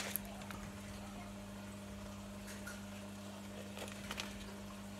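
Steady low hum of an aquarium filter pump, with a few faint crinkles and taps from a foil fish-food packet being handled.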